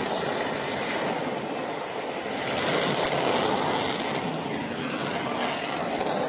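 A steady, dense rushing noise with no speech, swelling slightly around the middle.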